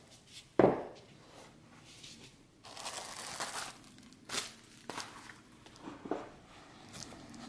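A sharp knock from the cardboard watch box being handled about half a second in, then crinkling and rustling of a bubble-wrap sleeve being pulled off, with a few softer taps.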